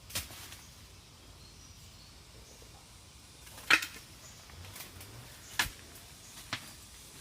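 A few scattered sharp knocks, four short hits over a quiet outdoor background, the loudest about three and a half seconds in.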